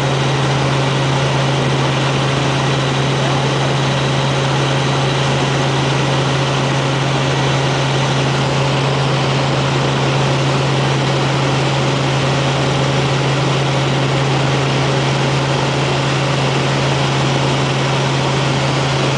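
Robinson R44 helicopter heard from inside the cabin in flight: its six-cylinder Lycoming piston engine and rotors run steadily, a strong low hum over a broad rushing noise.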